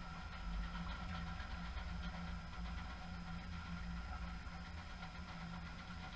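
Steady low machine hum with a slightly pulsing drone, and faint ticks and clicks over it.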